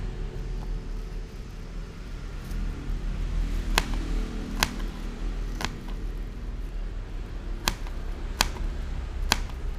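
Small kitchen knife slicing small red onions on a plastic cutting board: six sharp taps of the blade hitting the board, irregularly spaced, starting a little before halfway, over a steady low hum.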